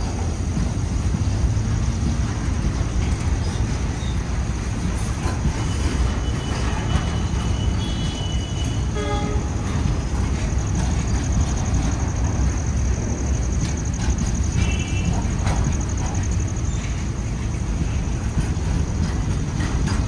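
Indian Railways goods train's wagons rolling slowly past: a steady low rumble of wheels on the rails, with a few short high squeals from the wheels partway through.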